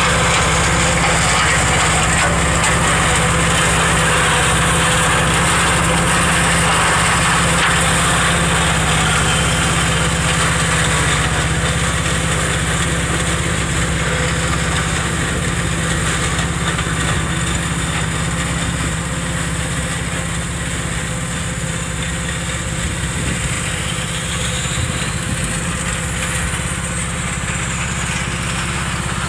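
Yanmar YM1500 compact diesel tractor running steadily under load, driving its EF115 flail mulcher as the rotor shreds brush and undergrowth. The sound grows a little fainter around the middle as the tractor moves off.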